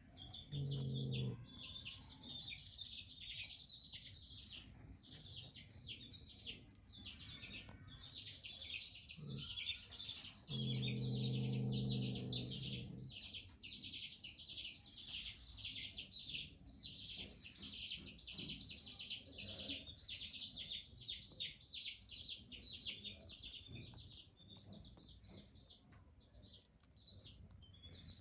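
Constant rapid, high-pitched chirping from many small animals, with two low drawn-out animal calls: a short one about a second in and a longer, louder one of a couple of seconds near the middle.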